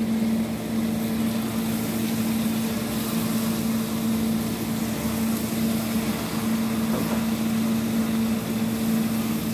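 Steady hum of a small motor with a constant low tone.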